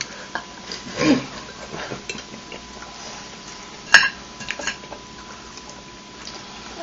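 Tableware clattering at a breakfast table: a utensil knocking against a plate or bowl, with one sharp clink about four seconds in and a few lighter clicks just after.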